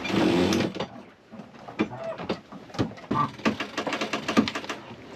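A brief rush of noise, then a rapid run of sharp clicks and ticks that thickens into a fast rattling series about three and a half seconds in and stops shortly before the end.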